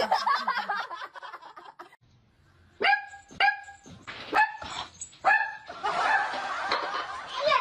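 A small puppy barking in short, high, sharp yaps, about two a second, starting about three seconds in. It is preceded by a quick run of light ticks and followed by a longer rough, noisy sound near the end.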